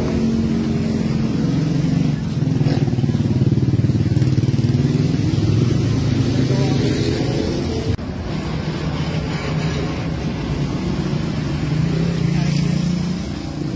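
Motorcycle engine running steadily at a low pitch, with a sudden drop in level about eight seconds in.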